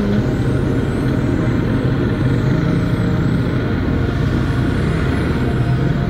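Kawasaki Z800 inline-four engine running steadily at low revs while creeping through slow traffic, over a constant hiss of wind and road noise.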